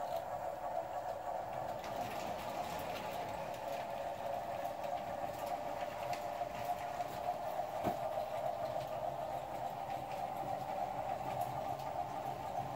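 American Flyer S gauge model train running on the layout's track, a steady, even rolling sound.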